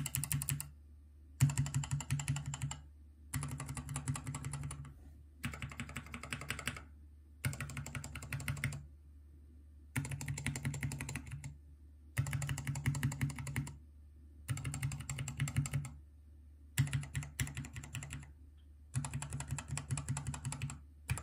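Mechanical keyboard switches on an acrylic 72-key switch tester being pressed rapidly, one switch after another. The presses come in about ten short runs of quick repeated keystrokes, each about a second and a half long, with brief pauses between them. A steady low hum runs underneath.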